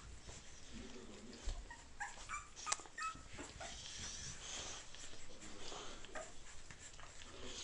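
Eighteen-day-old boxer puppies whimpering and squeaking in short high calls, most of them clustered a couple of seconds in, with fainter ones later. A single sharp click stands out among the calls.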